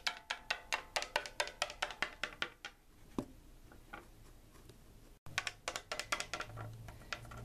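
Plastic Littlest Pet Shop figure hopped quickly across a wooden tabletop, light taps at about six a second that stop about three seconds in. After a short break comes another quick run of taps, then a low hum near the end.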